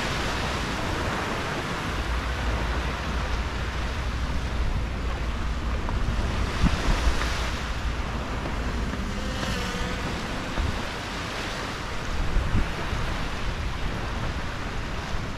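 Small waves washing up on a soft sand beach, a steady hiss of surf that swells a little as each wave comes in.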